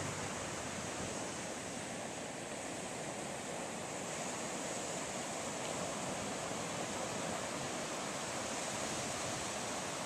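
Ocean surf breaking on a sandy beach: a steady, even wash of waves.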